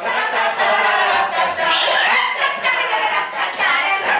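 An ensemble of actors' voices singing together loudly and raggedly, many voices overlapping, bursting in suddenly, with a few sharp claps among them.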